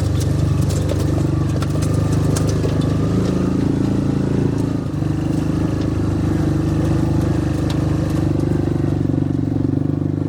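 Yamaha Rhino side-by-side utility vehicle's engine running steadily on the move, with light clattering and clicks during the first few seconds.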